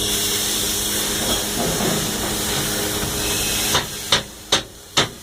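Stick-welding arc crackling and hissing steadily, cutting off a little before four seconds in. It is followed by five sharp metallic knocks about half a second apart.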